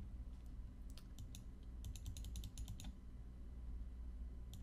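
A rapid run of sharp computer keyboard and mouse clicks lasting about two seconds in the middle, over a faint low steady hum.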